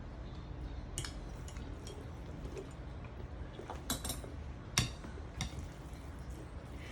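A kitchen utensil knocking and clinking against a bowl a few times, the loudest strike just before the five-second mark, over a low steady hum.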